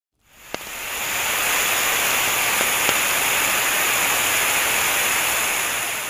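Intro sound effect: a loud, steady hissing rush of noise that fades in over the first second, with a sharp crackle about half a second in and two more near three seconds, then cuts off suddenly.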